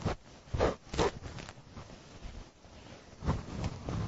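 Whiteboard duster wiping marker off a whiteboard: short rubbing strokes, a couple about a second in, then a quieter gap of about two seconds, then several more near the end.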